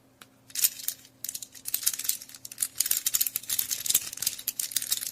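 Soroban (Japanese abacus) beads clicking and clattering in quick, irregular runs, starting abruptly at the beginning, over a faint steady hum.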